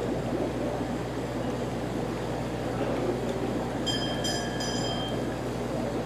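Steady outdoor background noise, a low even rumble and murmur, with a brief high whistle-like tone at a steady pitch about four seconds in that lasts a little over a second.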